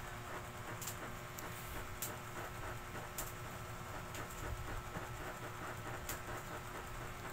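Steady low room noise with a faint hum, broken by a handful of faint, sharp clicks about a second or two apart.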